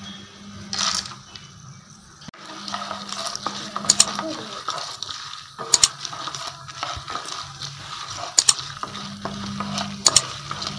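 Peanuts and dried red chillies sizzling in hot oil in a non-stick pan while a wooden spatula stirs them. The spatula knocks sharply against the pan in quick pairs, four times, over a low steady hum.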